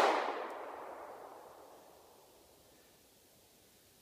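Echo of a Smith & Wesson M&P Shield pistol shot, fired just before, rolling away and fading out over about two seconds.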